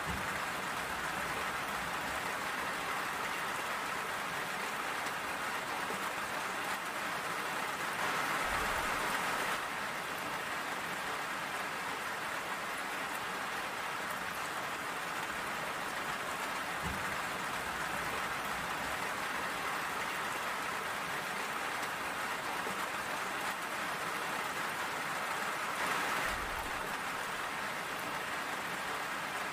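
Steady rain falling, an even, dense hiss. It swells briefly louder twice, about 8 and 26 seconds in, and there is one sharp tap about halfway through.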